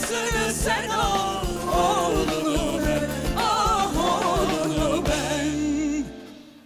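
Turkish pop song played live by a band, with a wavering sung vocal line over a steady beat. The music fades out near the end.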